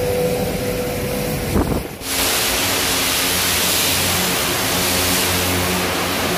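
A steady mechanical hum with a faint held tone, cut off after about two seconds. Then the loud, even hiss of a high-pressure water jet blasting residue off the steel of a ship's cargo hold, with a low pump drone under it.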